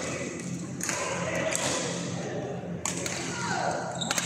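Badminton racket striking the shuttlecock in a jump smash near the end, a sharp crack echoing in a large hall. A short falling squeak about a second before it fits court shoes on the floor.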